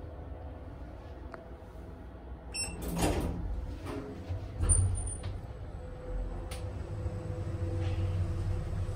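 Schindler 3000 machine-room-less traction elevator car travelling down one floor, with a steady low rumble. A short high beep comes about two and a half seconds in, a brief sliding rush follows just after, and a few light clicks come later.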